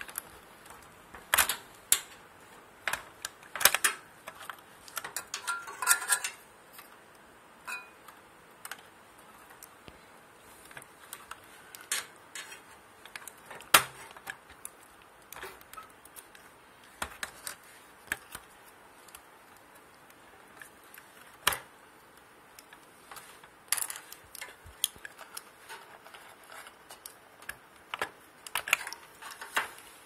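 Irregular sharp clicks, taps and small clatters as a screwdriver pries plastic wire connectors off terminals and knocks against the sheet-metal frame of a Daewoo microwave oven being taken apart.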